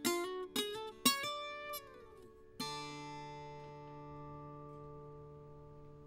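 Viola caipira, the ten-string Brazilian folk guitar, played solo: a few quick plucked chords and a note sliding down, then a final chord about two and a half seconds in that is left to ring and slowly fade, closing the piece.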